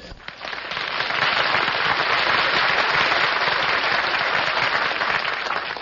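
Studio audience applauding, swelling within the first second, holding steady, then dying away near the end.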